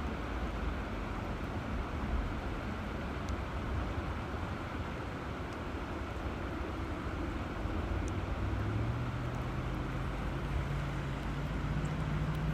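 River water running steadily. Under it is a low hum that steps up in pitch twice in the second half.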